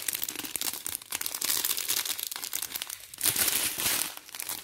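Crinkling of a strip of thin clear plastic sachets of round resin diamond-painting drills as it is handled and turned, a dense irregular crackle that gets louder for about a second about three seconds in.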